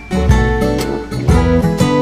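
Background music led by guitar, with a deep bass note about once a second.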